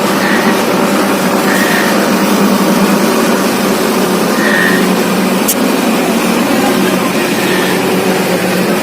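A steady engine-like drone with a constant low hum, a few short high peeps over it and a single click about halfway through.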